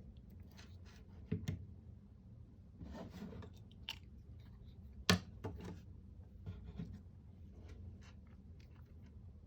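Light handling noises from work on a computer mouse and tools: scattered small clicks and taps with a short scraping rustle, the sharpest click about five seconds in.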